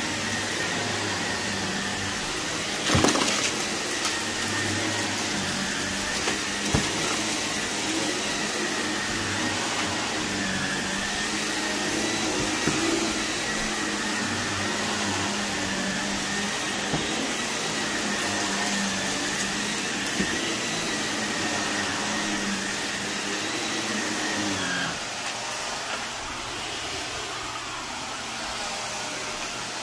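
Shark upright vacuum running steadily as it is pushed over carpet, with a thin high whine that drops away about 25 seconds in, leaving a slightly quieter steady sound. A few short knocks, the loudest about three seconds in.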